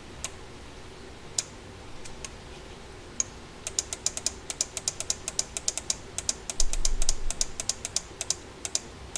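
Computer keyboard and mouse clicking: a few scattered clicks, then from about halfway through a quick run of clicks, several a second.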